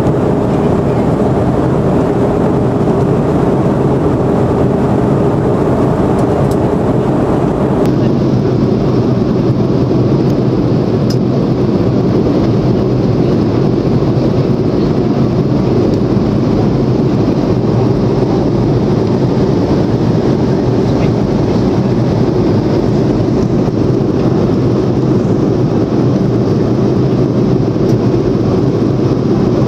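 Airliner cabin noise in flight: the jet engines and rushing air make a loud, steady, unbroken drone heard from a window seat. About eight seconds in, the sound turns slightly duller.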